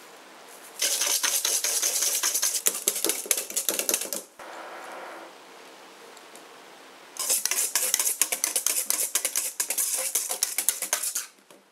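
Wire balloon whisk beaten fast against a stainless steel bowl, a rapid metallic clatter, in two bouts of three to four seconds with a short pause between. The first bout beats sugar into foamy egg whites; the second whisks in the yolks.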